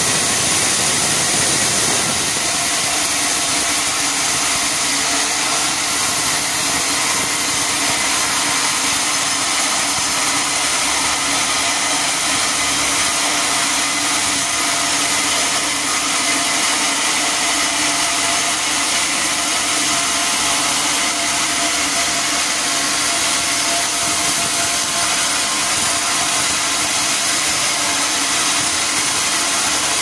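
Sawmill machinery running steadily, with a dense hum of steady tones over a noisy hiss. Its low end drops away about two seconds in.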